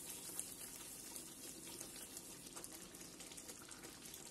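Thick tomato gravy with paneer simmering in a nonstick pan: faint bubbling with scattered small pops.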